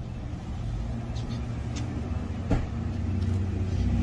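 A car's engine running and growing steadily louder as it approaches along the street, with one short click about two and a half seconds in.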